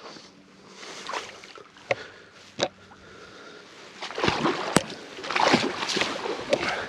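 Rubber boots wading through a shallow creek: a run of sloshing, splashing steps in the water, loudest a little past the middle, with a couple of sharp knocks among them.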